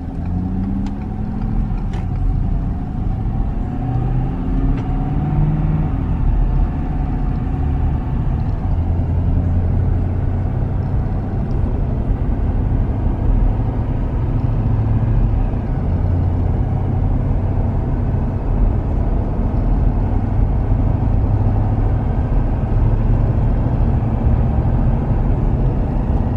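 Ford 6.7 L Power Stroke V8 turbodiesel in a pickup, heard from inside the cab at highway speed, running under a steady drone of engine and road noise. Its pitch climbs over the first few seconds as the truck pulls, then holds steady.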